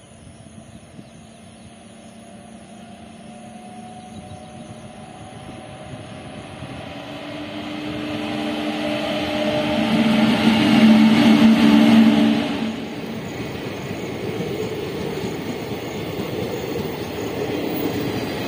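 WAP7 electric locomotive at the head of a passenger express, approaching and passing at speed. The rumble grows steadily, with a steady hum from the locomotive that is loudest as it passes about ten to twelve seconds in and cuts off sharply. The coaches' wheels then keep up a steady rumble as they roll by.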